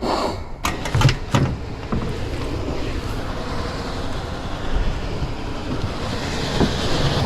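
Steady rushing of wind on the microphone, with a few sharp clicks about a second in from handling wires or tools.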